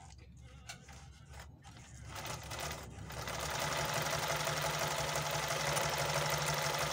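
Olimpia multi-stitch household sewing machine sewing a test seam through fabric. After a few light clicks, its motor speeds up about two seconds in and then runs steadily with a fast, even rattle of the needle mechanism.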